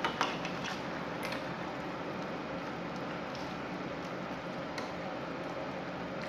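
A pot of broth simmering on a gas stove, a steady wet hiss, with a few soft clicks and splashes as egg noodles are slid in and stirred with a spatula, most of them in the first second or so and one more near the end.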